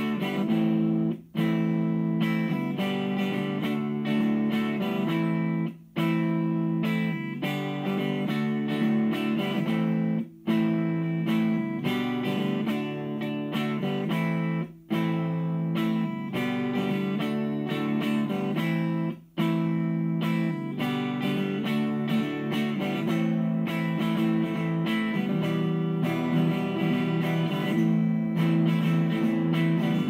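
Electric guitar strumming chords through a Behringer V-AMP PRO amp-modelling processor on an undistorted clean tone. A repeating chord pattern breaks off for a moment about every four and a half seconds.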